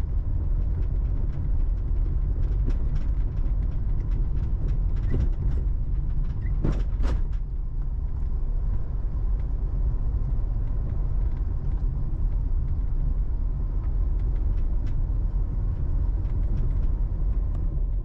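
Diesel vehicle driving steadily on the road, heard from inside: a constant low engine and road rumble.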